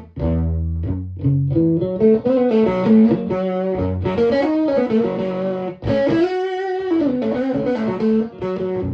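Electric guitar played loud through a Victoria 35310 tweed amp, a clone of the Fender 5E7 Bandmaster with three Jensen P10R speakers, its volume at 7: a lead line of single notes with string bends and vibrato.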